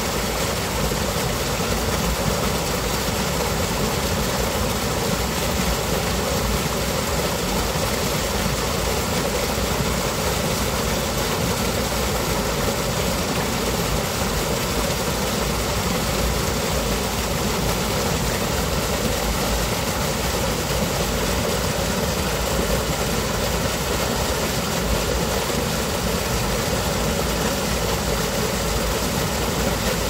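Water pouring over a small concrete weir into a narrow channel: a steady, unbroken rushing noise with no change in level.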